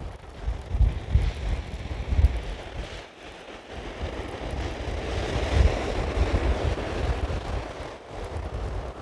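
Wind buffeting the microphone over surf on the beach, with a wave breaking and washing up the shore about four seconds in, swelling and then fading over a few seconds.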